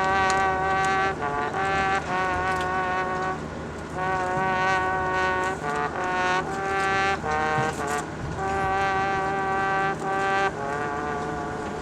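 High school marching band's brass and wind section playing held chords, in phrases of one to two seconds with short breaks between.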